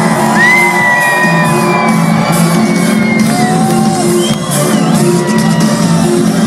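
Live rock band playing loud, with the crowd shouting and whooping over it.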